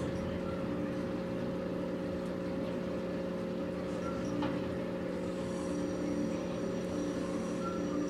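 A steady low mechanical hum from a motor or appliance, with a few faint, brief higher tones over it.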